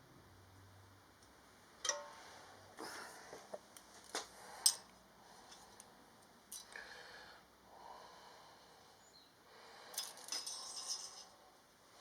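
Metal clinks and knocks from metal parts and tools being picked up and set down, a few separate clinks first and then a quick cluster of them near the end.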